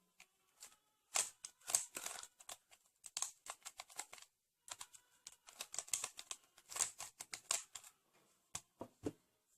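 Rubik's cube being turned through a 2-look OLL algorithm: a quick, irregular run of plastic clicks and clacks as the layers turn, in a few runs separated by short pauses.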